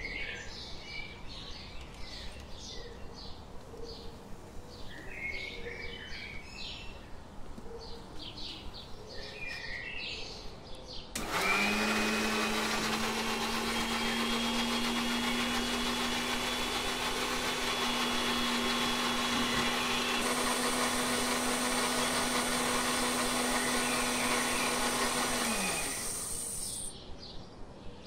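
Birds chirping, then about eleven seconds in an electric mixer grinder switches on and runs for about fifteen seconds, grinding tomatoes, salt and chopped coriander in its steel jar. Its steady whine drops in pitch as it winds down, and the birds are heard again after it stops.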